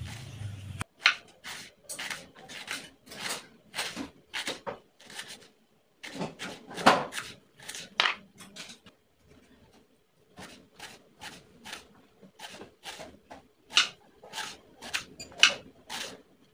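Knife slicing an onion on a wooden cutting board: a run of short cuts, about two a second, with a pause of about a second and a half just past the middle.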